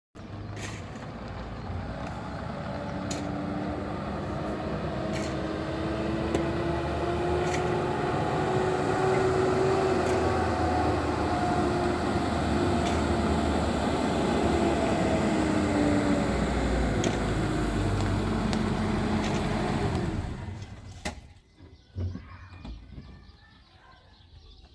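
A motor vehicle running with a steady drone, its engine note drifting slowly up and down. It winds down and cuts off about 20 seconds in.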